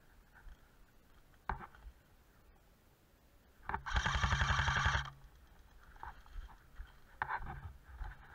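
Airsoft electric gun firing one fully automatic burst of rapid shots lasting just over a second, with the steady hum of its motor under the shots. A single sharp snap comes about a second and a half in and another about seven seconds in.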